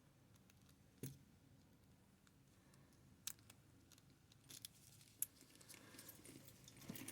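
Faint, scattered small metallic clicks and scrapes of a hook pick and tension wrench working the pins inside a Master Lock No. 575 padlock, the clearest click about a second in.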